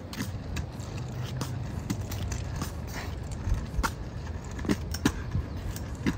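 A child's three-wheeled kick scooter rolling on a concrete sidewalk: a low steady rumble from the small plastic wheels, with irregular light taps and clicks about two a second.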